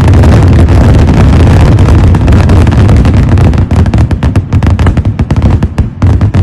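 A rapid-fire barrage of firework bangs, at first so dense that they merge into one continuous loud din. About halfway through it thins out into separate sharp cracks that come further and further apart.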